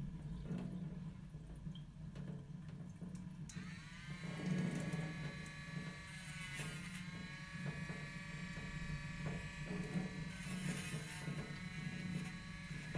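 A small electric motor tool switches on about three and a half seconds in and spins up to a steady high whine. Its pitch dips and recovers twice, as if briefly loaded. A low steady hum sits underneath.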